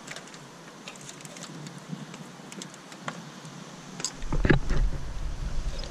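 Scattered light clicks and clinks of parts and tools being handled. About four seconds in, a sudden loud knock followed by a low rumble that lasts to the end.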